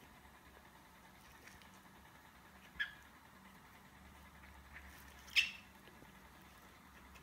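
Pac-Man frog (Ceratophrys ornata) giving two short squeaks while being handled, about three seconds in and again, louder, a little after five seconds: the defensive call of a disturbed horned frog.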